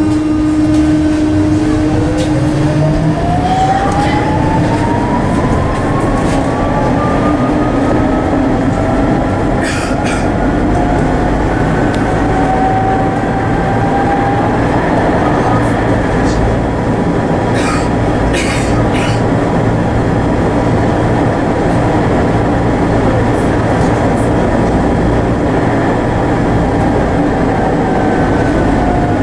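Tatra T6A5 tram running, heard from inside the passenger saloon: steady rumble of wheels on rail with the traction motors' whine rising in pitch as it accelerates, and the whine starting to fall near the end as it slows. A few sharp clacks of the wheels over track joints.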